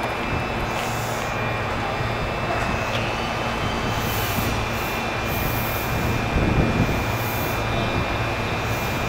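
Steady rumble and hum of a Nagoya Railway (Meitetsu) train at the station, with a thin steady high tone and short bursts of high hiss coming and going. A brief louder rumble rises about six and a half seconds in.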